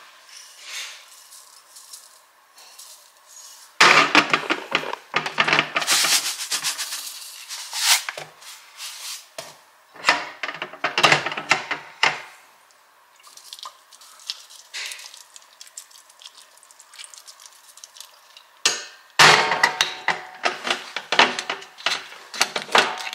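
Salt, pepper and dried herbs shaken from their containers over a salad in a glass bowl: dry rattling in three spells, starting about four, ten and nineteen seconds in.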